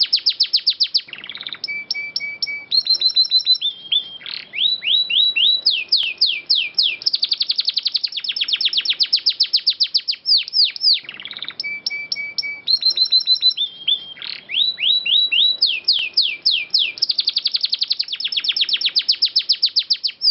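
Domestic canary singing: fast rolling trills, short repeated notes and quick falling whistles, the same sequence of phrases coming round about every ten seconds.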